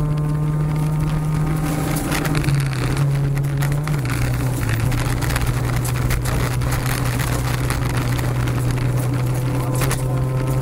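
Honda Civic rally car's 1.6-litre four-cylinder engine driven hard on a special stage, heard from inside the cabin. Its pitch steps down about two and four seconds in as the car slows for a turn. A rough gravel-and-tyre noise runs under the engine through the corner, and the engine tone comes through clearer again near the end.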